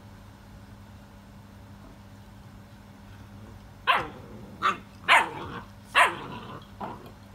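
XL American Bully puppy barking: four loud, short barks in quick succession starting about halfway through, then a fainter fifth.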